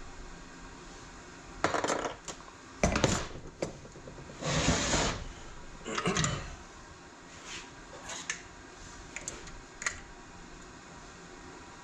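Metal parts and hand tools knocking and clattering during a TH350 transmission teardown: a run of separate sharp clanks, with a longer scraping slide about four and a half seconds in.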